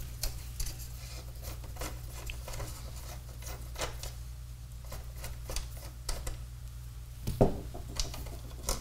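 Light, irregular metallic clicks and taps of a screwdriver and small screw-and-nut hardware against the metal front panel of a BC-348 receiver as a screw is worked loose by hand, with one louder knock about seven seconds in. A steady low hum runs underneath.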